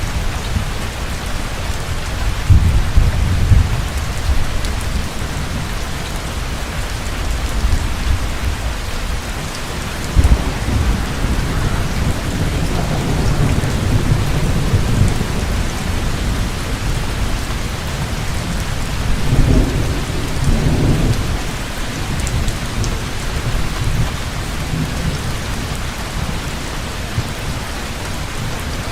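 Heavy rain pouring steadily, with rolling thunder rumbling in low swells three times: a few seconds in, again through the middle, and once more about two-thirds through.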